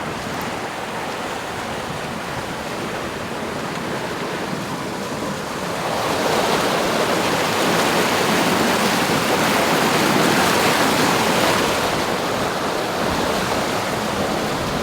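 Rushing water and wind noise aboard a sailboat under way, swelling louder about six seconds in and easing off near the end.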